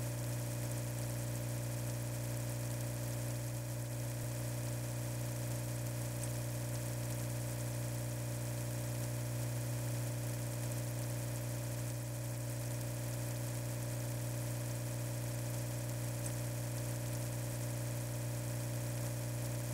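A steady low hum with a buzzing edge, like a small motor or electrical equipment running, unchanging in level and pitch throughout.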